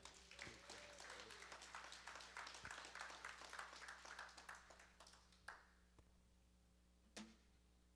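Faint applause from a congregation, dying away about five seconds in, followed by two light knocks.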